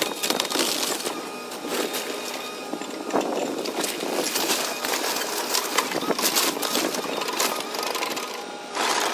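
Caterpillar excavator's engine running while its bucket and thumb tear at a wood-frame house wall: wood cracking and splintering and debris clattering down, with several louder crashes along the way.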